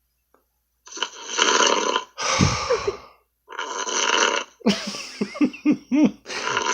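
A man snoring heavily over a Skype phone call. Long, rough snores about a second each come after a quiet first second. A deep snort falls about two seconds in, and a run of short, wavering, throaty snorts comes near the end.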